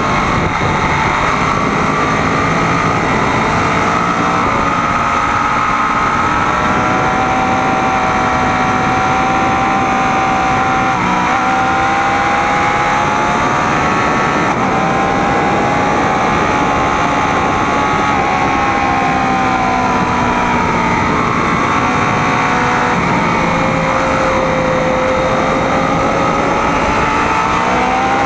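Sport motorcycle engine pulling hard at speed, heard from onboard. Its pitch rises and falls gently as the throttle and revs change.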